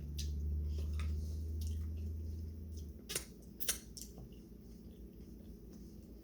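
Wet, squishy eating sounds of sauce-covered lobster and seafood being handled and chewed, with scattered sharp clicks, two louder ones a little past three seconds and near four seconds in. A low hum stops about three seconds in.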